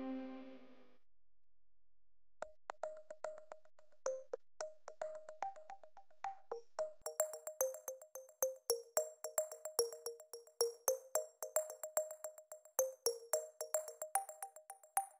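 Background music. A held chord fades out within the first second, and after a short gap a run of short, quick notes begins. A fast ticking beat joins it about seven seconds in.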